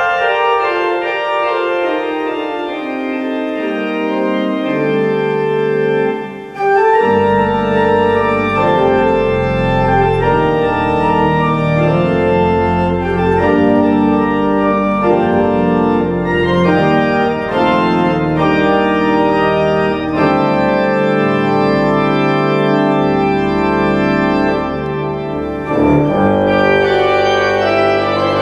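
Organ postlude: sustained chords on a large multi-manual organ. The deep pedal bass is silent at first and comes in about six and a half seconds in, and after a brief break near the end the sound returns fuller and brighter.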